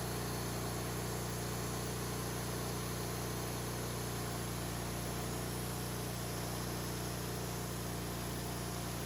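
Woodmizer LT40 portable sawmill running steadily, its engine holding an even pitch.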